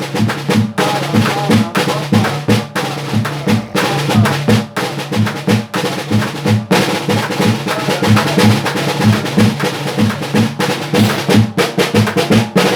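A snare drum plays a busy rhythm of quick strokes over a tarro, a can struck as a bass drum, which keeps a steady repeating low beat, in a Colombian Pacific style.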